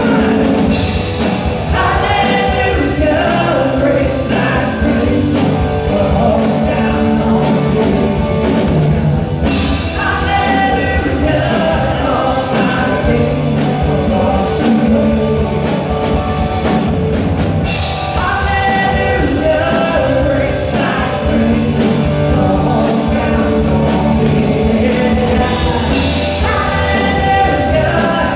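A live rock-style worship band playing: drum kit, electric bass, electric and acoustic guitars and keyboard, with sung vocal phrases over the steady band.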